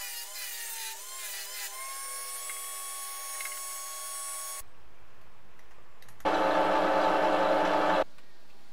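A small hand-held power tool runs with a high whine that wavers in pitch, then holds steady and cuts off abruptly. A second or so later comes a louder, harsher burst of power-tool noise, about two seconds long, that starts and stops abruptly.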